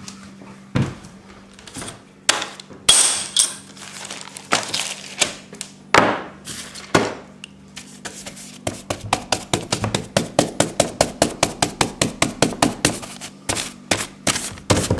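Household knocks and clinks: a few scattered sharp knocks over the first half, then a fast, even run of about four knocks a second for some five seconds, over a faint steady hum.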